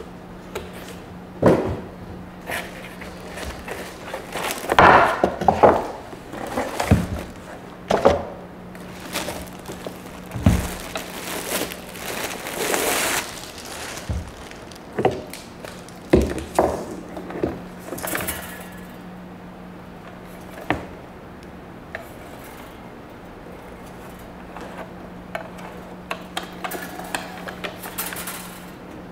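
Handling noises from unboxing a Breville toaster. Plastic packaging rustles and crinkles and a molded pulp insert is pulled away, with irregular knocks and thumps as the toaster is set down on a wooden table and turned over. The handling is busiest in the first half and quieter near the end.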